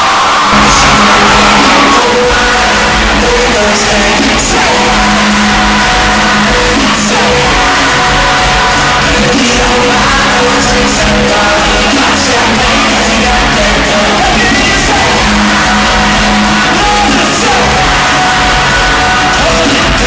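Live R&B concert: a male singer's vocals over a full live band, with keyboards and drums, played loud through an arena sound system.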